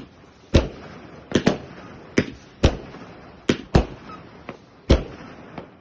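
Fireworks bursting: a string of about nine sharp bangs, irregularly spaced at roughly two a second, some in quick pairs, over a steady hiss of background noise.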